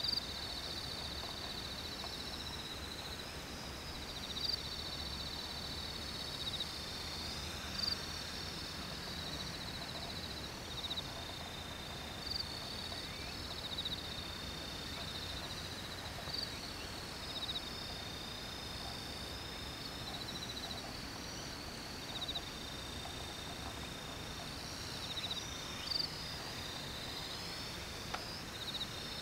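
Insects trilling steadily in a high, pulsing drone, with a short higher call standing out every couple of seconds over a light outdoor background.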